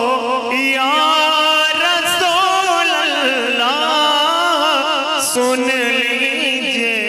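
Male voice singing an Urdu naat in long, ornamented phrases, the pitch wavering and gliding through each held note.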